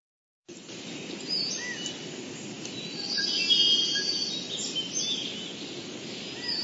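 Nature ambience sound effect: several birds chirping, whistling and trilling over a steady bed of outdoor background noise, fading in about half a second in.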